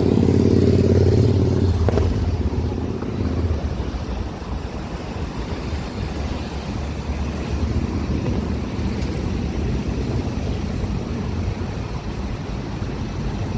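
Street traffic: a motor vehicle's engine passes close and loud over the first two seconds or so, then steady traffic rumble.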